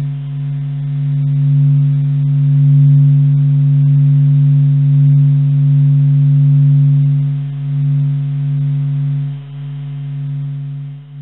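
The "sound of the sun": the sun's surface oscillations, recorded by spacecraft and sped up into the range of hearing, played as a low, pulsing hum. It is one steady low tone with fainter overtones that slowly swells and eases in loudness.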